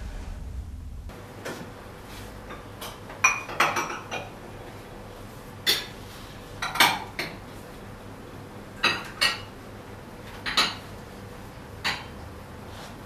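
Crockery and cutlery clinking: about eight separate sharp clinks and clatters, a second or two apart, over a low steady background.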